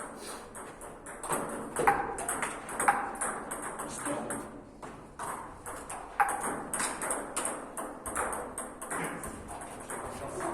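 Table tennis ball being hit back and forth: a quick, irregular run of sharp clicks of the celluloid-type ball on bats and table, a few strokes louder with a short ringing tone.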